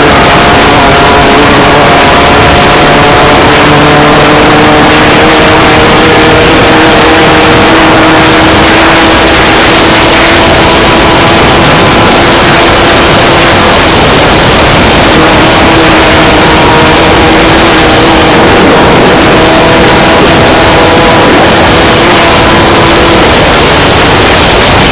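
Class 16 desert race car's engine running hard at high revs, heard from inside the car, under a heavy rush of noise. The engine pitch drifts slowly up and down as the throttle varies, and the whole is very loud.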